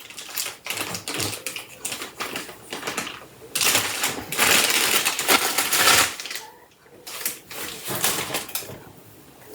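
Printer packaging being handled and cleared away: a run of quick taps and clatters, with a louder stretch of rustling and scraping from about three and a half to six seconds in.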